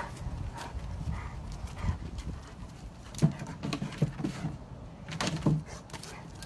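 A Rottweiler's paws thumping and scrabbling as it jumps onto and off a low wooden pallet platform and moves on concrete. The knocks come in clusters, with a sharp one about three seconds in.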